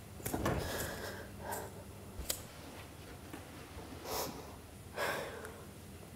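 Quiet breaths and sniffs from a woman, three of them: one near the start, one about four seconds in and one about five seconds in, with a faint click a little over two seconds in.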